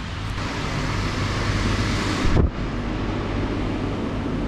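Steady rushing of air across a handheld GoPro's microphone as it is carried along, over a low rumble. About halfway through there is a brief thump, after which the hiss turns duller.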